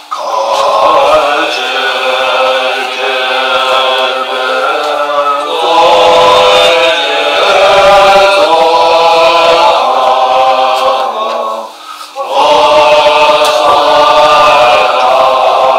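Tibetan Buddhist monks chanting prayers together in unison, male voices in long, pitched lines, with a brief pause for breath about twelve seconds in.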